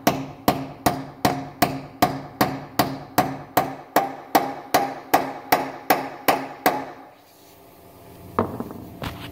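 Hammer blows driving an 11/16-inch 12-point socket onto a seized locking lug nut to make it grip: steady strikes about two and a half a second, each with a short metallic ring, stopping about seven seconds in. One lighter knock follows near the end.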